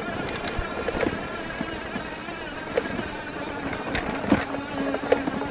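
A 1000 W fat-tire e-bike's electric hub motor whining under power while riding over rough grass, its pitch wavering slightly with speed. Sharp clicks and knocks from the frame and rack come through on the bumps.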